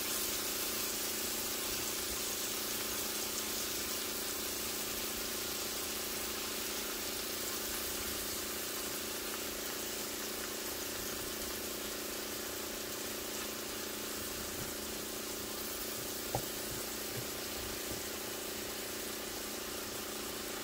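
Sliced mushrooms sizzling steadily in a nonstick frying pan, over a steady hum. A single sharp tap of the tongs on the pan comes about sixteen seconds in.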